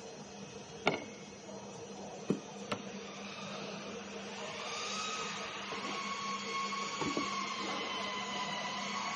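Cut MDF pieces knocking sharply against the board a few times as they are lifted out of the sheet, over a steady machine hum. From about halfway a higher motor whine with hiss comes in and runs on.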